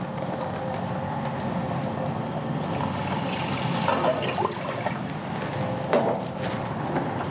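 White wine poured into a hot saucepan of onions cooked with flour, the liquid bubbling and sizzling steadily in the pan.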